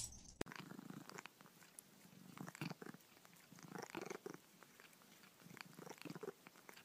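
Faint purring from a long-haired, flat-faced cat pressed up close to the microphone, coming in soft pulses about every second and a half.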